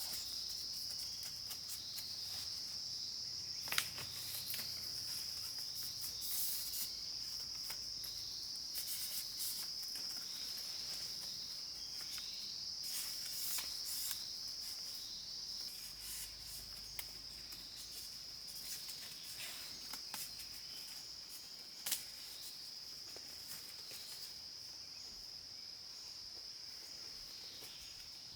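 Steady high-pitched chorus of forest insects, with scattered light crackles and two sharp snaps, one about four seconds in and one about two-thirds of the way through.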